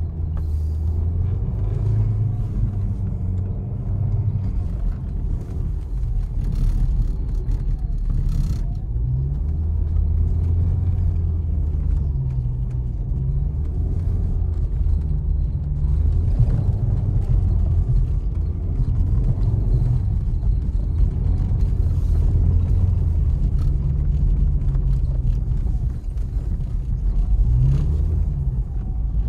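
Mercedes 200TE S124's four-cylinder petrol engine heard from inside the cabin, its pitch rising and falling as the car is driven and slid on snow, over a steady rumble of tyres and road. A few short noisy bursts come around seven to eight seconds in.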